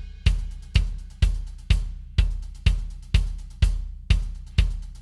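A steady drum beat, with evenly spaced hits about twice a second, each a deep thud under a cymbal-like wash that dies away before the next.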